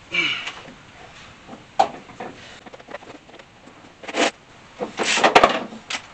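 Hands working on the heater box fasteners in a truck's engine bay: irregular scrapes, rustles and clicks of handling metal and plastic parts, busiest about five seconds in with one sharp click.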